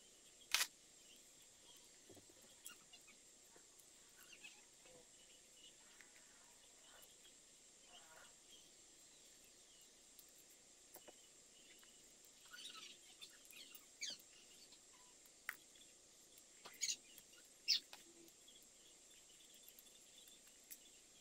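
Scattered sharp clicks and clacks of LEGO Technic plastic parts being pulled apart and set down, over a faint steady hiss. The loudest click comes about half a second in, with a handful more in the second half.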